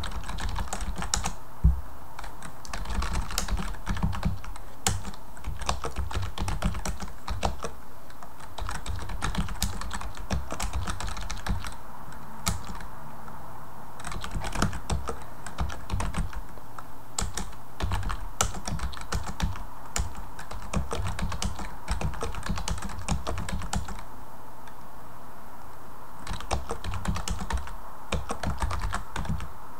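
Typing on a computer keyboard: quick, irregular runs of key clicks broken by short pauses, over a steady low hum.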